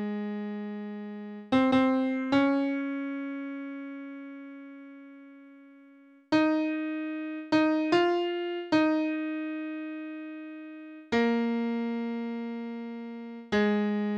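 Piano sound from a hymn's score playback, playing the tenor line's closing 'Amen' cadence: single notes struck one at a time, each held and fading away, the last few long and slow.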